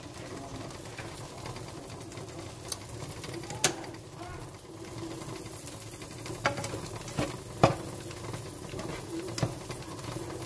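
Plastic slotted spatula stirring and scraping bitter gourd and egg in a non-stick frying pan, with a handful of sharp knocks against the pan, over a steady low hum.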